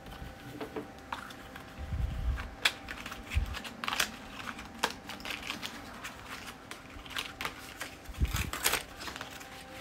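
Hands handling plastic phone cases and their packaging: scattered clicks, taps and crinkling, with a few dull bumps.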